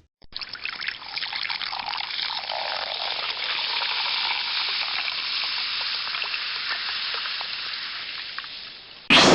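A sound-effect clip of a steady watery hiss with fine crackles. It starts suddenly and slowly fades near the end, and a short, sharp sound begins just as it dies away.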